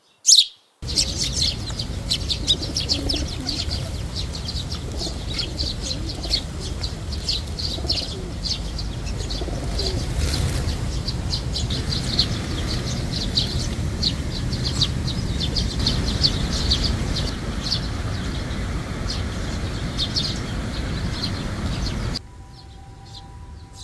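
A flock of Eurasian tree sparrows chirping: many short, overlapping chirps, several each second, over a low steady rumble. Near the end the chirping cuts off suddenly, leaving only a faint steady hum.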